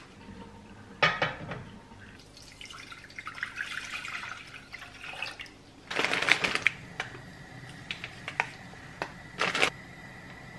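Kitchen handling at a gas stove: a saucepan set down with a clatter on a metal heat-diffuser plate about a second in, then a stretch of rustling hiss. A plastic noodle packet crinkles loudly, then wooden chopsticks give several light taps against the pot.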